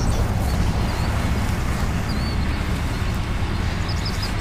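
Steady low rumble of the rollback tow truck's engine running, with small birds chirping high above it.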